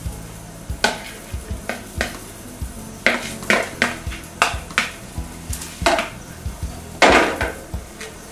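Metal spoon scraping and clinking against a plastic mixing bowl, scraping out the last of a beaten egg mixture. It is a string of short, irregular scrapes, with the longest and loudest about seven seconds in.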